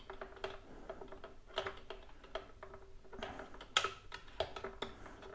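Faint, irregular light clicks and scrapes of a bent metal coat-hanger wire hook poking about inside a plastic fuel tank, fishing for the fuel pickup body.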